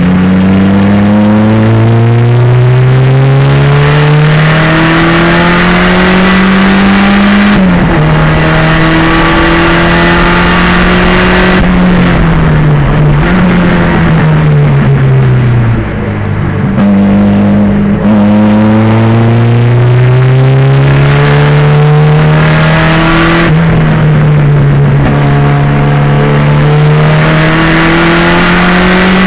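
1987 Pontiac Fiero's 2.0-litre turbocharged engine at racing speed, its note climbing again and again as it pulls through the gears and dropping at each shift. The note falls off twice, around the middle and again later, as it slows for corners.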